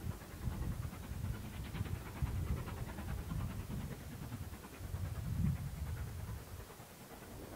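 GWR 5205-class 2-8-0 tank engine No. 5239 steam locomotive working away with a rhythmic chuffing of its exhaust beats, growing fainter as the train pulls away.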